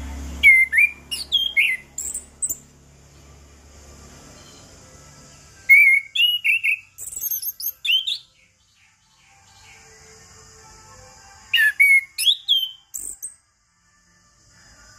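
Orange-headed thrush singing in three bursts of quick, varied whistled phrases: about a second in, around six seconds in, and near twelve seconds in.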